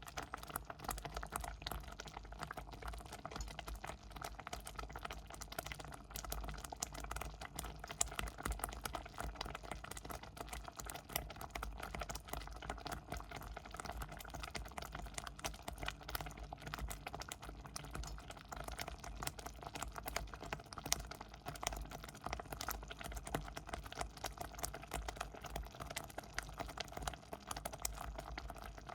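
Porridge boiling in a pot, thick bubbles popping in a dense, steady stream of small plops and clicks.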